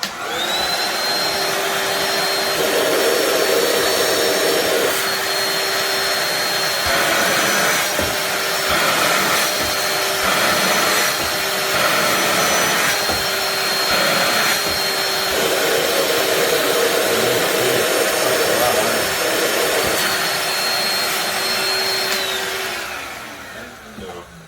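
Cordless handheld vacuum cleaner running on a 20V power-tool battery: its motor whines and rushes air steadily, with its tone shifting a few times. It is switched off about 22 seconds in and winds down.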